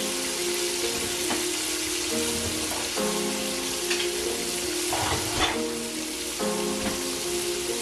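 Chicken pieces deep-frying in oil in a cast-iron skillet: a steady sizzle with a few sharp pops. Soft background music with held chords plays underneath.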